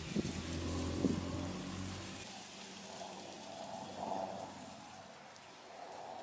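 Guinea pigs munching on a pile of fresh-pulled weeds: a soft, crackly chewing and rustling of the greens. A low mechanical hum stops suddenly about two seconds in.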